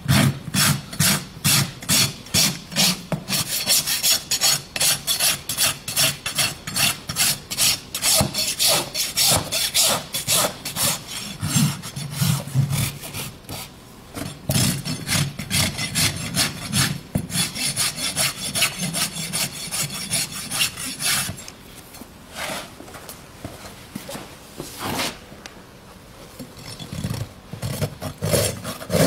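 Farrier's flat hoof rasp filing a horse's hoof wall in quick back-and-forth strokes, about three a second, dressing the foot. In the last several seconds the strokes thin out to a few lighter passes.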